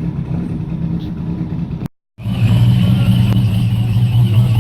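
Holden Commodore drift car's engine running hard. It breaks off at an edit about two seconds in, then returns louder with a wavering high tone over it.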